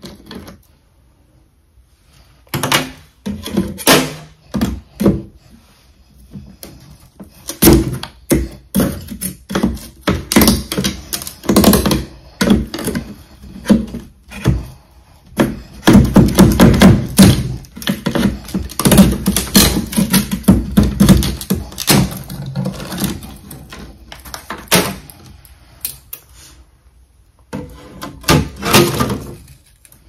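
Hard ice being knocked and cracked: a long run of irregular thunks and crunches, coming in clusters, densest and loudest in the middle.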